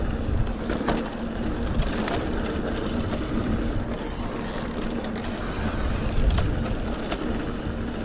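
Mountain e-bike ride on a dirt trail: tyres rumbling over the ground and wind on the microphone, with a steady low hum and a few small ticks from the ground.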